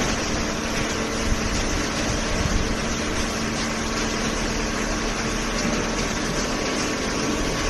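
Cardboard compactor baler running, a steady machine hum with a constant whirring noise.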